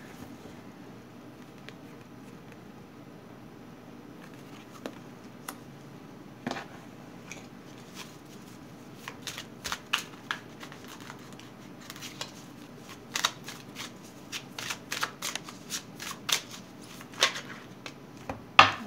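Tarot cards being shuffled by hand. A few scattered card snaps come at first, then a quick run of flicks and taps from about halfway in, with the loudest snap near the end.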